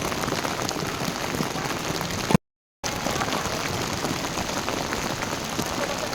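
Steady, dense patter of falling rain, broken by a moment of complete silence a little over two seconds in.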